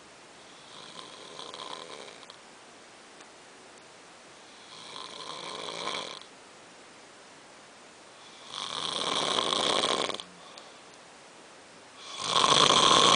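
Heavy snoring: four long, rasping snores about four seconds apart, each louder than the last.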